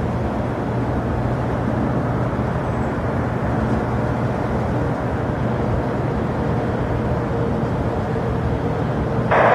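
Steady rumble of jet aircraft engines at an airport, with a low steady hum. Near the end a burst of air-traffic-control radio hiss cuts in over it.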